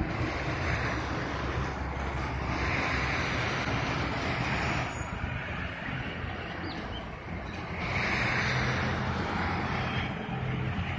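A diesel-hauled passenger train pulling away down the line: a steady low rumble of the locomotive and wheels on the rails, with a low engine hum throughout and a few slow swells of hiss.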